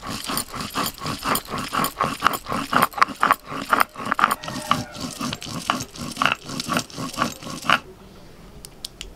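Stone roller (nora) grinding cumin and coriander seeds on a grooved stone slab (shil): a rasping back-and-forth scrape of stone on stone at about three strokes a second. The grinding stops about a second before the end.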